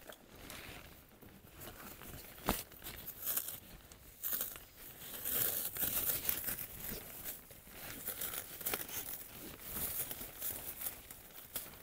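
Packaging being crinkled and torn open as rose seedlings are unwrapped. The rustles come in irregular bursts, with one sharp snap about two and a half seconds in.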